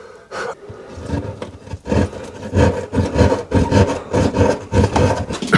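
Electrical cable being pulled by hand through a drilled hole in a cupboard wall, rubbing and scraping against the hole's edge in a quick series of strokes, a few a second, from about two seconds in.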